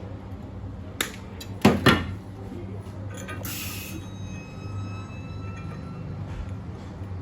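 Steel pieces clanking together about a second in and again, louder and twice, just under two seconds in, each strike leaving a thin metallic ring, over a steady electrical hum; a short hiss follows a little later.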